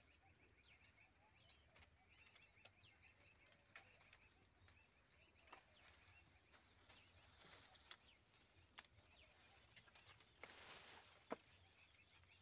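Quiet outdoor ambience with faint birds chirping in short repeated notes. A few sharp clicks and a brief rustle about ten seconds in come from leafy branches being pulled and handled in a custard apple tree.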